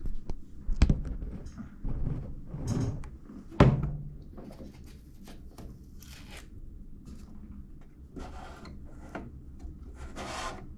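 Hands handling equipment: a couple of sharp knocks, the louder one about three and a half seconds in, then scattered rubbing and scraping.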